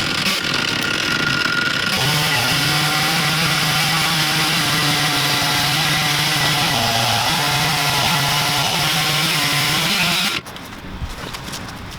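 Stihl MS 460 two-stroke chainsaw with a rip chain running steadily at high speed under load, ripping a log lengthwise in an Alaskan chainsaw mill. The sound cuts off suddenly about ten seconds in.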